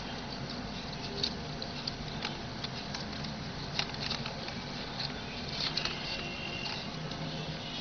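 Palm-leaf strips rustling and crackling as fingers fold and thread them, with small irregular clicks and scratches over a steady background hiss.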